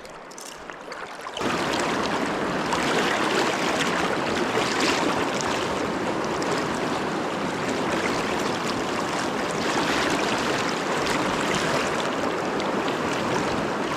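Rushing river current, a steady even noise of moving water. It starts abruptly about a second and a half in, after a quieter stretch.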